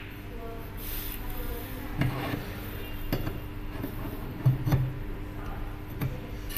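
Light metallic clinks and knocks of a wooden rod being fitted between the three-jaw chuck and the spring-loaded tailstock centre of an aluminium rotary attachment, with a handful of sharper knocks spread through.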